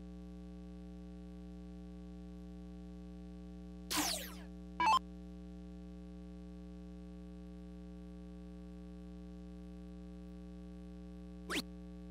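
Electronic dartboard sound effects over a steady mains hum: a quick falling electronic sweep about four seconds in, followed by a short bright blip. Near the end comes a brief falling chirp as the board registers a dart in single 13.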